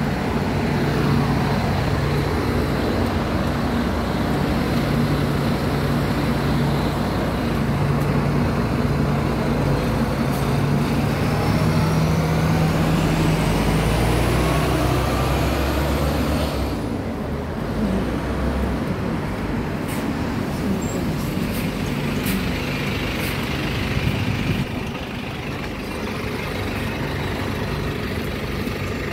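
Double-decker diesel bus engine running close by with a steady low hum, with a faint rising whine partway through. The hum fades out a little over halfway, leaving lower, even road traffic noise.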